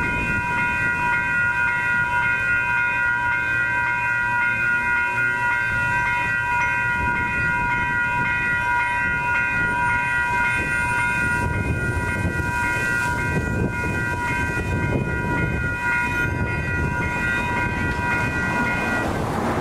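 Several electronic railroad-crossing bells (WCH Type 4 and General Signals Type 2) ring steadily as a cluster of high tones, over a low rumble. The bells cut off about a second before the end, as the crossing clears and the gates rise.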